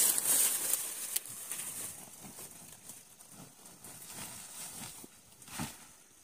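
Dry corn stalks and leaves rustling and crackling, loudest in the first second and then fading, with one short rustle about five and a half seconds in.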